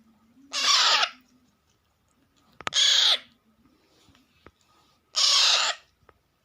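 Alexandrine parakeet chicks giving harsh, raspy calls, three in a row about two and a half seconds apart: the food-begging calls of hungry chicks.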